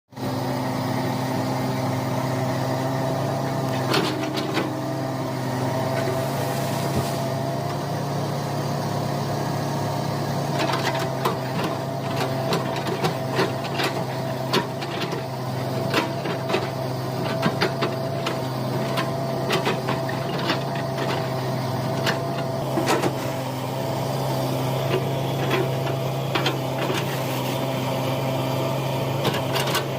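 Hitachi excavator running steadily, its engine hum carrying a constant mid-pitched whine, with irregular sharp clanks and knocks from about ten seconds in.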